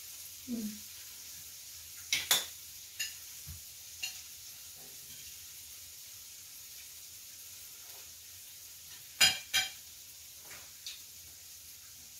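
Cutlery and dishes clinking at a dinner table, a few sharp clinks around two to four seconds in and the two loudest a little past nine seconds, over a steady faint sizzling hiss from food cooking on a tabletop grill.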